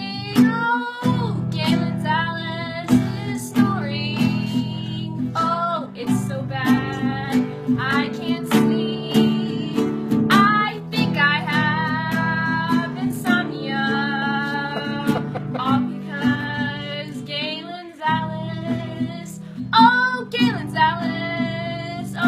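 A voice singing, gliding and holding notes, over a strummed acoustic guitar.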